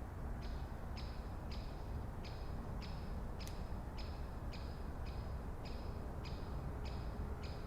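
A bird in a forest calling one short, high note over and over, about twice a second, over a steady low background rumble.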